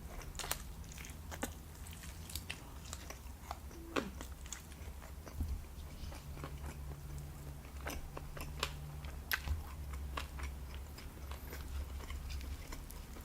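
Close-miked chewing and mouth sounds of a person eating, with scattered soft wet clicks and smacks over a low steady hum.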